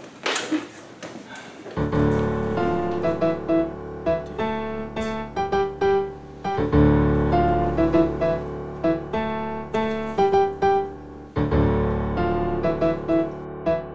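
Background piano music with quick, repeated notes and deep bass notes every few seconds. It starts about two seconds in, after a brief burst of noise.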